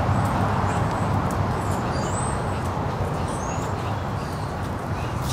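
Steady low background rumble with faint, short, high bird chirps scattered over it.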